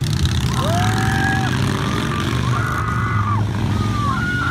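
A three-wheeled roadster's engine running loud as it drives by, a deep rumble under a whine that climbs, holds and drops off several times as it pulls through the gears.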